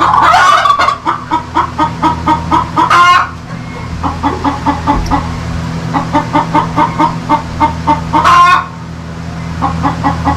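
Chickens clucking in a quick repeated run of calls, with loud squawks at the start, about 3 seconds in and again near 8.5 seconds, over a steady low hum.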